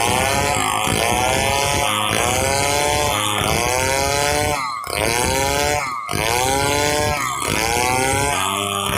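Stihl 070 two-stroke chainsaw running hard while sawing a log into boards, its engine pitch dropping and climbing back about once a second, with two short dips near the middle.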